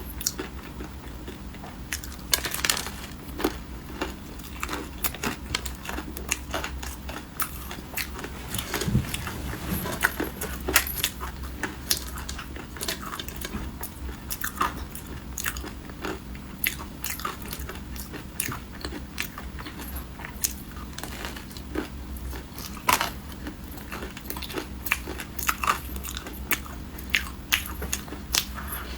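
Close-miked chewing and biting of crisp, crunchy food, with many sharp, irregular crunches several times a second.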